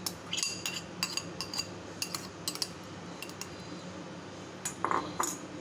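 A steel spoon clinking and scraping against a glass bowl and a steel mixing bowl as grated potato is scraped from one into the other. Light, irregular clinks come thickly in the first half and again near the end.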